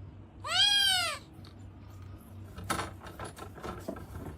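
A cat meowing: one long, drawn-out meow whose pitch rises and then falls, starting about half a second in. A few light clicks follow near the three-second mark.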